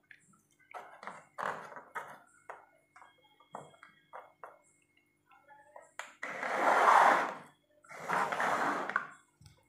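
Small Christmas bauble ornaments clicking and tapping as they are set down and moved on a board, with a faint ringing ping, followed by two long bursts of rustling noise, the first the loudest.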